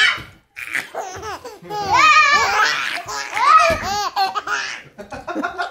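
Baby laughing in several high-pitched, squealing bursts, the loudest about two seconds in.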